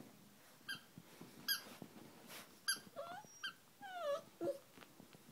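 A squeaky ball toy squeaking four times in short, sharp squeaks as an English Springer Spaniel puppy bites it, with a few short whines from the puppy in the second half.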